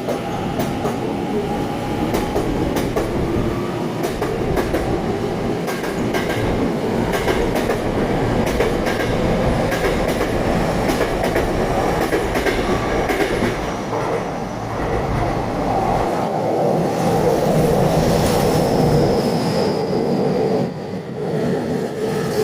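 Tokyu 5050 series electric train pulling into a station platform, its wheels clicking over rail joints with a steady running noise. A high, slightly falling squeal comes in about three quarters of the way through as it slows.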